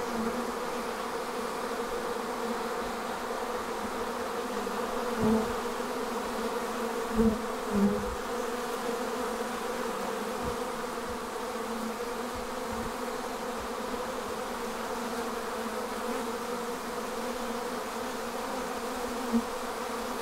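Steady buzzing hum of a large honeybee colony clustered thickly on the front of its hive, with bees flying around it. A few brief soft thumps come in about a quarter of the way in, twice more shortly after, and once near the end.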